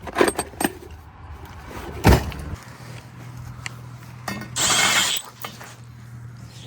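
Clicks and a loud knock of tools and metal parts being handled while setting up to drill out a mounting hole. This is followed by a low steady hum and a half-second burst, likely from a power drill, near the end.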